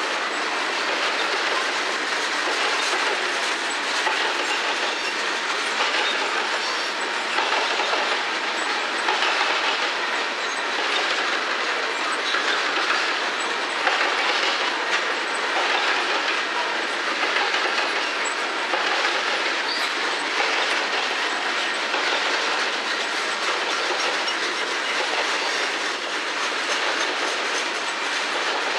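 Covered hopper cars of a potash freight train rolling past steadily, a continuous noise of steel wheels on rail with repeated clicks as the wheels pass over rail joints.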